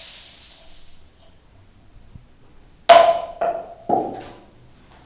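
A brief dry rustle as dried cardamom is tipped into a cloth hops cooking bag, then about three seconds in, three sharp knocks with a short ringing note about half a second apart, the first the loudest, from the small metal cup being knocked.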